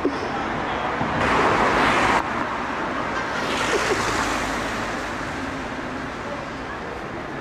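Cars passing on a city street, engine and tyre noise in a steady hiss. Two louder passes stand out: one about a second in that cuts off suddenly, and another about three and a half seconds in.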